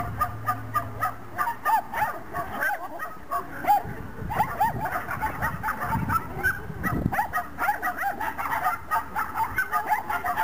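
Dog barking in rapid high-pitched yips, several a second, the excited barking of a dog at an agility run.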